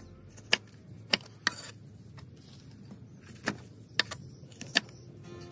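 Large kitchen knife chopping through pieces of tilapia on a wooden cutting board: six sharp chops, irregularly spaced.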